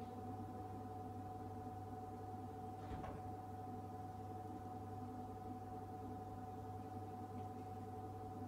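Refrigerated drinks vending machine humming steadily: a low hum with a steady higher tone over it. A brief faint knock sounds about three seconds in.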